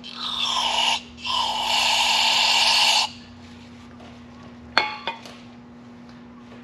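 Two hissing sprays, the first about a second long and the second nearly two seconds, with a steady level. They are followed by two light, sharp metallic clicks a few seconds in.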